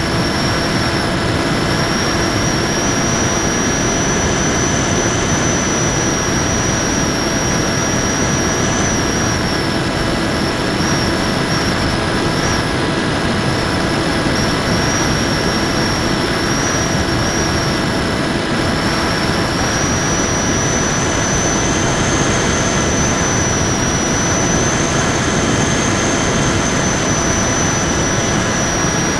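Electric motor and propeller of an FPV Raptor model plane whining steadily at a high pitch over heavy wind rush, heard from the plane's onboard camera; the whine drifts slightly up and down in pitch with throttle.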